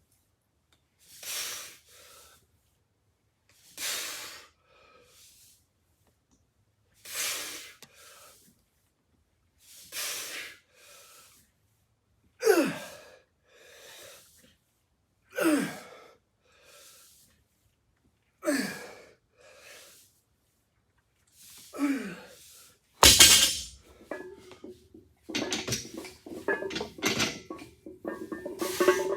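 A weightlifter's forceful breaths, one about every three seconds, the later ones ending in a short falling grunt, in time with the reps of a set. Near the end a loud thud, then metal clanking and rattling.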